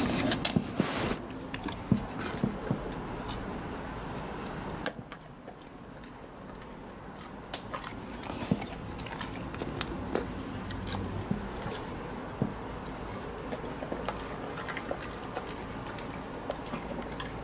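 Alaskan Malamute eating small bits of chicken nugget off a laminate floor: chewing and snuffling, with scattered sharp clicks and taps. It is busiest in the first five seconds and quieter after.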